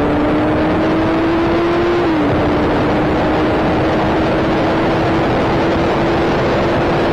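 Motorcycle engine under way, its pitch climbing slowly, with a short dip about two seconds in as it shifts up a gear before it settles to a nearly steady cruise. Heavy wind noise on the microphone runs underneath.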